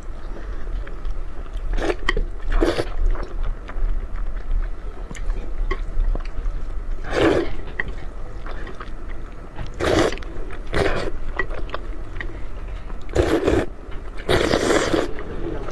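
Close-miked slurping and chewing of wide buckwheat noodle sheets in sauce: about seven wet slurps of roughly half a second each, the longest near the end, with small chewing clicks between them.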